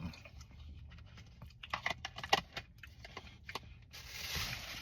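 Scattered light clicks and taps, busiest midway, then a brief rustle near the end: a fork and takeout food container being handled during eating.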